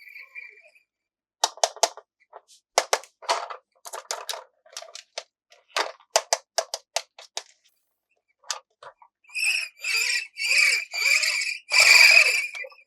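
Plastic toy pieces being handled: a run of sharp clicks and taps, then about six short squeaky bursts near the end.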